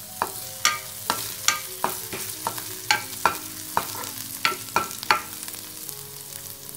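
Cumin, green chili paste and fresh curry leaves sizzling in hot ghee in a pan, stirred with a spatula: about a dozen sharp clicks, some with a short ring, over the steady frying hiss, stopping about five seconds in.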